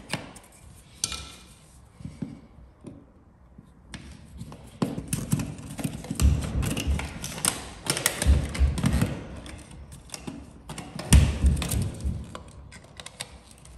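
Clicks, taps and scraping of plastic and metal as a wall power socket is unscrewed with a screwdriver and worked loose from its wall box, with several dull thumps, busiest in the second half.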